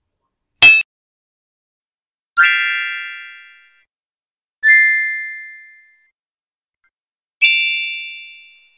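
Sound effects laid over otherwise silent footage: a short sharp blip about half a second in, then three separate bell-like dings, each ringing out and fading over about a second.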